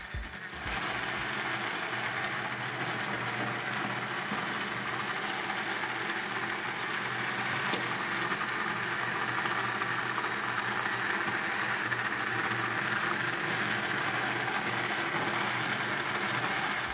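Immersion hand blender running steadily in a pan of pepper and vegetable sauce, puréeing it smooth. It starts about half a second in and stops right at the end: a constant whirring with a thin high whine over it.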